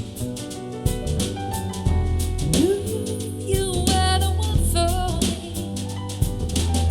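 Soul jazz song played back through in-ear monitors: a sung vocal line over drum kit and bass.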